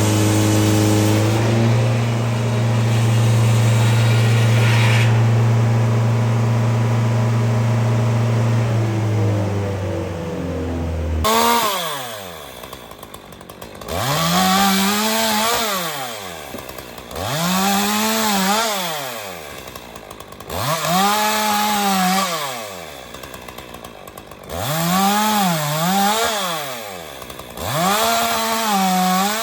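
A small engine runs at a steady speed, then about eleven seconds in falls into repeated cycles of revving up, holding, and dropping back, about every three and a half seconds.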